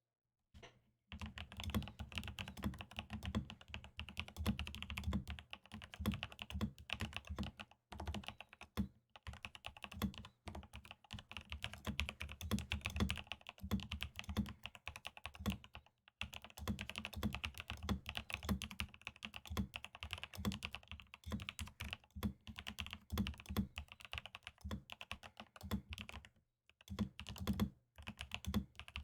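Typing on a RAMA KARA SEQ1 mechanical keyboard in an ABS case with a polycarbonate plate, fitted with lubed linear frankenswitches (Tangerine 67g housings and springs with Kailh Pro Burgundy stems) and Cherry-profile PBT keycaps. Steady runs of keystrokes start about a second in, with a few short pauses.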